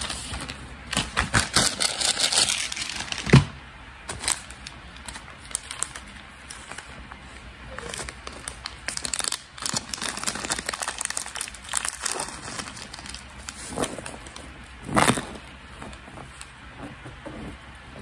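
Plastic packaging crinkling and rustling as it is handled and opened: a dense stretch of crackling in the first few seconds, a sharp knock about three seconds in, scattered crinkles later and another loud rustle near the end.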